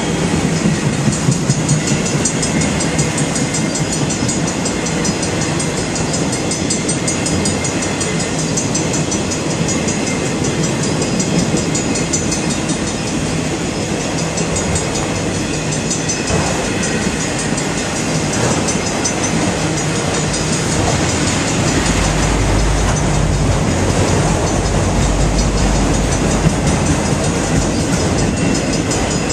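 Canadian Pacific freight train rolling past, its cars' wheels clattering steadily over the rails. A deeper low rumble joins about two-thirds of the way through.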